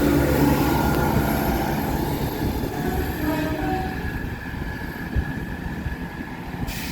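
Class 166 diesel multiple unit pulling out of the platform, its low diesel engine rumble fading as it moves away. There is a brief burst of noise near the end.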